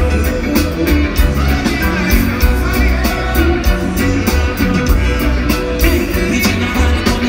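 Live reggae band music, loud, with heavy bass and a steady drum beat.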